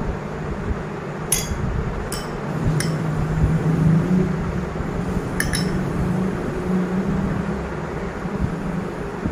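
A metal spoon clinking against a glass plate about five times as filling is scooped up, the clinks sharp and ringing briefly, over a steady low hum.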